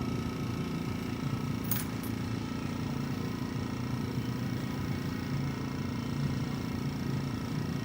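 Shop air compressor running with a steady hum while it powers a Gundam Marker airbrush. A single small sharp click sounds about two seconds in.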